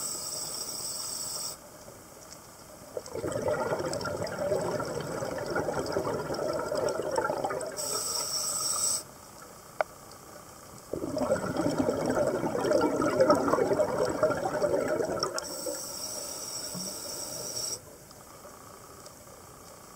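Scuba diver breathing through a regulator underwater: short hissing inhalations alternate with two long rushes of exhaled bubbles.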